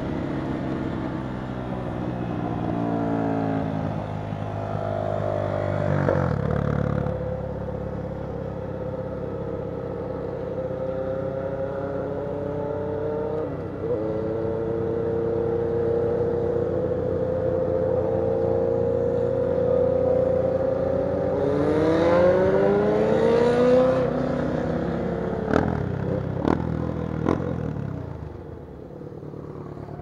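Motorcycle engines running while riding: the pitch rises as they accelerate and drops at each gear change, with a second engine rising over the first about two-thirds through. A few sharp pops come near the end as the engine slows and gets quieter.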